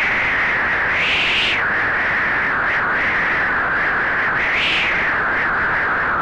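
Synthesised storm-wind sound effect from the u-he TYRELL N6 software synthesizer: filtered noise whistling in gusts that rise and fall in pitch, with the strongest gusts about a second in and again a little past the middle.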